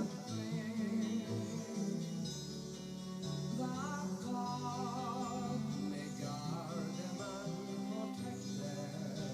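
Music playing: a song with singing over guitar.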